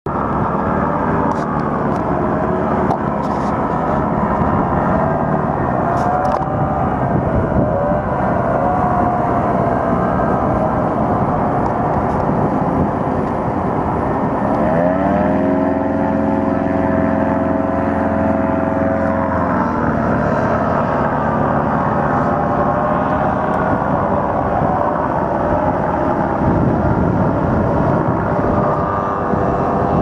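Paramotor engine running, its pitch gliding up and down as the aircraft flies past. About halfway through the pitch rises quickly and holds steady for about five seconds, then falls away.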